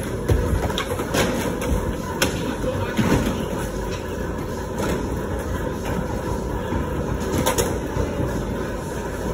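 Skateboard wheels rolling on concrete and ramps, a steady rumble broken by scattered sharp board clacks and knocks, in the reverberant hall of an indoor skatepark, with indistinct voices underneath.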